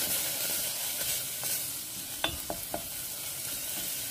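Wooden spatula stirring and scraping kaffir lime leaves, green chillies and aromatics around a stainless steel pot over a steady light sizzle of oil: the aromatics are being toasted until fragrant. A few sharp clicks of the spatula against the pot come about halfway through.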